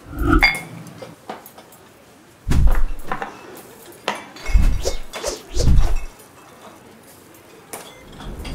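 Handling of a ceramic mug and a glass swing-top sugar jar on a stone countertop: a clink with a brief ring at the start, then a few dull thumps and small glassy clicks as the jar is set down and opened.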